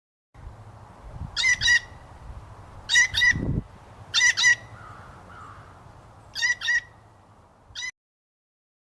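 A bird calling loudly in quick double notes: four pairs a second or two apart, then a single call at the end, over a faint background hiss with a brief low rumble about three and a half seconds in.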